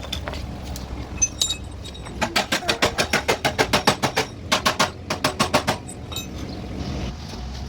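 Hammer tapping on car body steel in quick runs of strikes, about six a second, each with a metallic ring. A steady low hum runs underneath.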